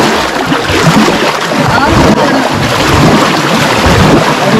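Thick muddy pond water sloshing and splashing in loud, irregular surges as people wade chest-deep and grope through it by hand.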